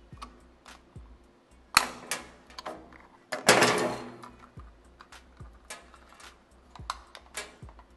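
Screwdriver tips clicking and scraping against the plastic case of a small digital hanging scale as it is pried open along its glued seam. Irregular sharp clicks, with a loud snap about two seconds in and a louder crackling snap near the middle as the plastic gives.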